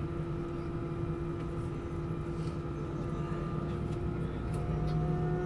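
Steady jet-engine hum and rumble of an Airbus A319 taxiing, heard from inside the passenger cabin, with faint steady whining tones over it; about four and a half seconds in, another faint whine comes in and rises slightly.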